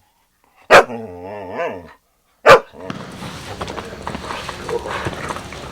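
A dog barking twice, sharply: once about a second in, drawn out into a wavering whine, and again at about two and a half seconds. From about three seconds a steady hissing noise with scattered clicks runs on under it.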